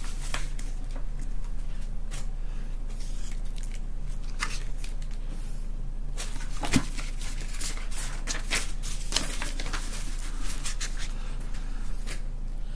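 Paper rustling and pages turning as a hardcover book is handled, with scattered short rustles and taps and one sharper tap about seven seconds in.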